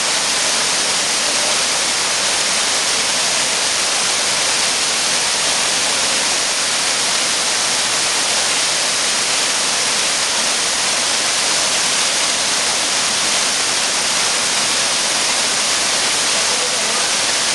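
Steady roar of a waterfall, a loud, even rush of falling water heard up close.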